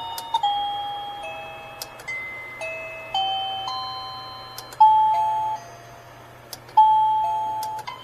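Reolink doorbell's plug-in chime playing one of its ringtone tunes: a slow melody of electronic bell-like notes, each one struck and fading away before the next.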